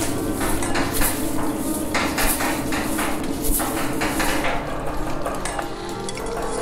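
Dense metallic clinking and clattering, like metal tools or utensils knocked together, with a couple of brighter scraping swishes midway, over a steady low hum.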